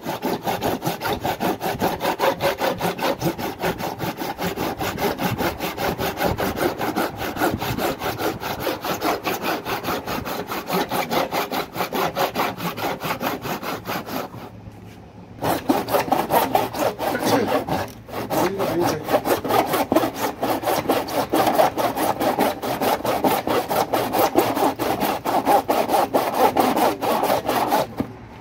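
A hand saw cutting through the plastic outer tub of an Ariston washing machine in quick back-and-forth strokes, sawing apart the pressed-together tub halves to reach the drum bearing. The sawing pauses for about a second halfway through and stops just before the end.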